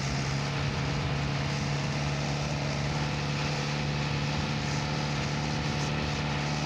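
Engine of the moving vehicle running at a steady speed, a constant low hum with road noise.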